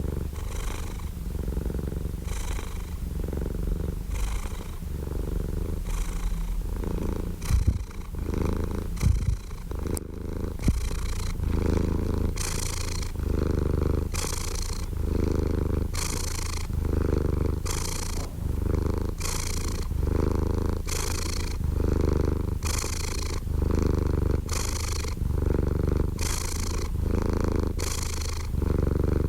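Domestic cat purring close up, a steady low drone that swells in a regular rhythm with each in and out breath, a little more often than once a second.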